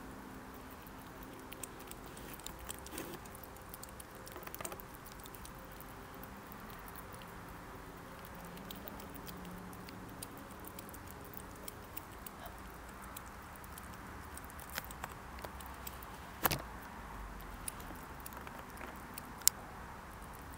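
A European hedgehog foraging and eating in straw bedding: soft rustling and chewing made of many small scattered clicks, with two sharper clicks in the second half.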